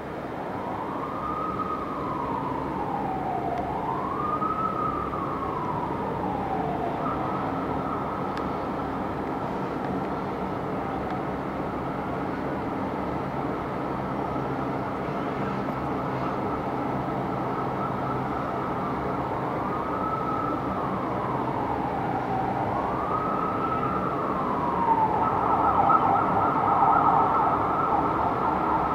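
Emergency vehicle sirens from a responding fire engine and ambulance. Slow rising-and-falling wails switch to a steady held tone, then wail again and change to a fast yelp near the end, growing louder as the vehicles approach. Steady city traffic hum lies underneath, heard from high above the street.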